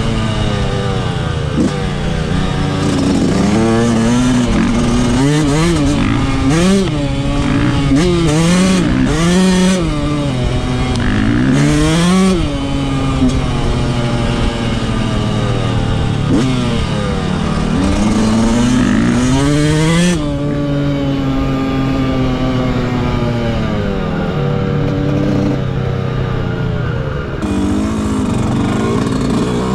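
Yamaha YZ125 single-cylinder two-stroke motocross engine being ridden, its pitch climbing and dropping again and again as the throttle is opened and shut. After about twenty seconds it settles into a steadier tone that slowly sinks.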